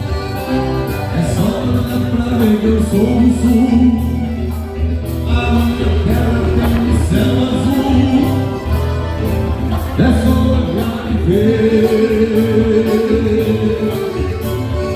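A live band playing Gaúcho regional music, with singing over the instrumental accompaniment and a steady beat.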